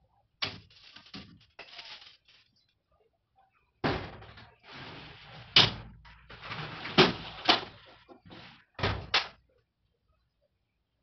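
Clattering, scraping and several sharp knocks from a sliding glass door as laundry is moved out through it. The handling stops about nine seconds in.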